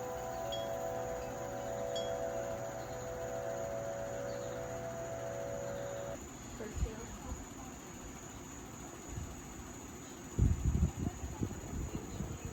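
A held chord of steady ringing tones that cuts off abruptly about six seconds in, over a steady high chirring of crickets. A few low thumps come near the end.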